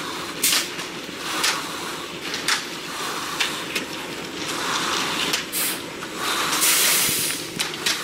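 Tools scraping and sliding through wet concrete as it is spread and screeded, in irregular strokes, with a louder hissing rush about two-thirds of the way in.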